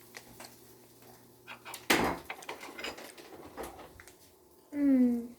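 Tableware at a dinner table: scattered light clicks of utensils and dishes, with one louder sharp knock about two seconds in. Near the end a short hummed "mm" from a voice, falling in pitch.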